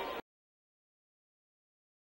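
Dead silence: the room sound cuts off abruptly a moment in, and nothing follows.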